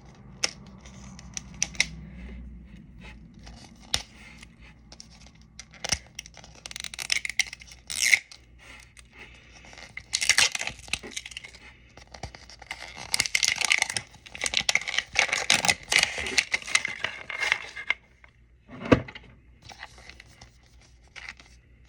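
Plastic wrapping being torn and crinkled off a Mini Brands capsule ball, in irregular crackly bursts with sharp clicks and scrapes of handling.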